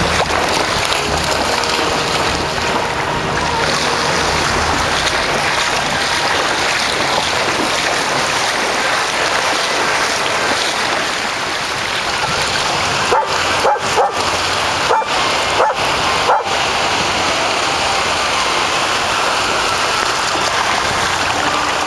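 Steady rush of shallow ocean surf and water splashing as dogs run through the waves, with dogs barking and yipping a few times around the middle.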